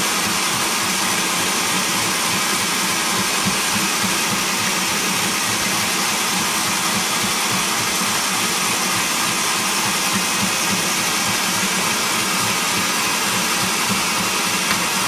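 Electric hand mixer running steadily at one speed, its beaters whipping a thick cream in a glass bowl, with a steady motor hum over whirring noise.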